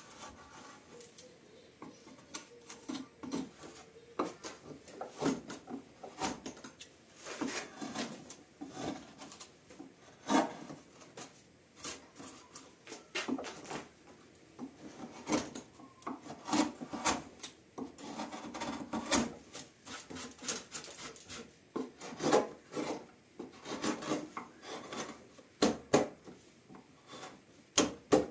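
A hand tool working wood: irregular, repeated scraping and rasping strokes, some short and sharp, others longer.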